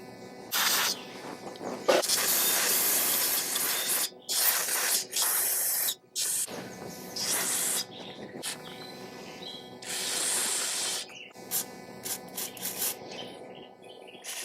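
Pressurised spray hissing in repeated blasts, some brief and some lasting a few seconds, as the generator's gummed-up carburetor jets and passages are cleaned out.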